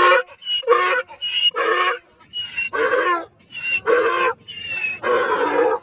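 Waterfowl calling over and over in short, loud, nasal quacks or honks, about two a second.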